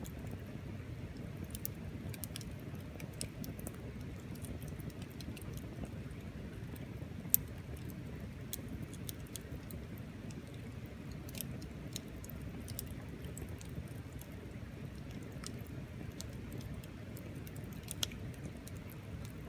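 Wood bonfire crackling, with frequent small snaps over a low steady rumble. There is a sharp, loud pop about seven seconds in and another near the end.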